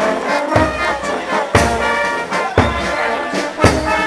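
A marching brass band playing, trombones and trumpets holding notes over a bass drum struck about once a second.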